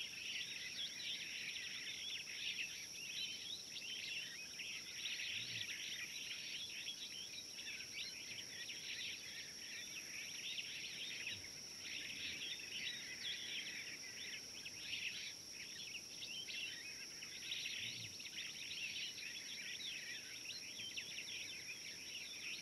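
Daytime bush ambience: a dense, continuous chorus of small birds chirping rapidly with brief lulls, over a steady high-pitched whine.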